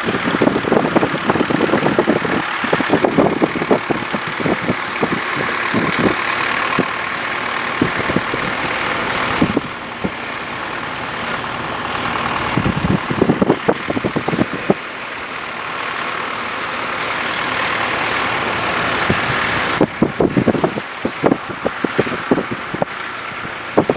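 Ford 4000 four-wheel-drive tractor's engine running steadily under load while pulling a two-furrow plough. Irregular wind buffeting on the microphone, strongest at the start and near the end.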